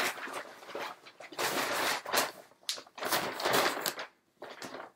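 Shopping bag rustling and crinkling as it is handled and opened, in several irregular bursts.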